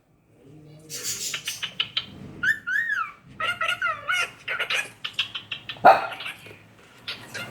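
Cockatiels chattering, with quick repeated chirps and a few rising-and-falling whistles. One loud, harsh call stands out about six seconds in.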